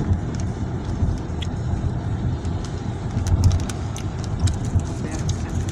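Night thunderstorm ambience: a steady low rumble with a few small swells, scattered through with many sharp ticks.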